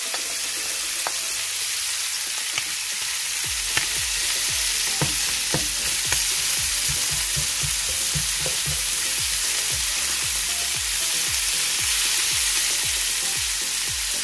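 Liver and sliced red onion sizzling in oil in a nonstick frying pan. From about three or four seconds in, a slotted spatula scrapes and knocks the pan in repeated strokes as the mixture is stirred.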